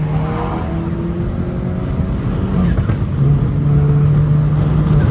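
Turbocharged 2.0-litre four-cylinder engine of a stage 2, E85-tuned Mk7.5 VW Golf GTI running loud through a muffler-deleted exhaust with a catless downpipe. The exhaust drone holds a nearly steady pitch, with a slight rise in the first second.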